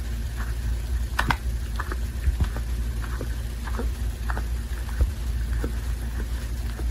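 American shorthair brown tabby cat licking himself while grooming: short, wet licking clicks at an irregular pace of about one or two a second, over a steady low hum.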